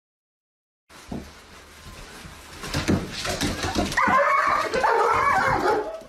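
A dog whining in loud, wavering, whimpering cries starting about four seconds in, after a few soft thumps and knocks.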